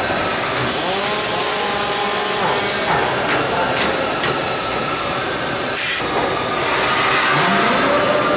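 Robotic welding cell at work: the electric drives of the KUKA robot arms and the rotating fixture whine up in pitch as they start to move, then hold steady, over constant machine noise. A burst of hiss and a few sharp clicks come in the middle.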